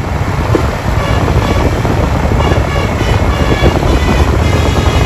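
Heavy bus engine running close by with a loud, dense low rumble. Faint high tones sound above it from about a second in.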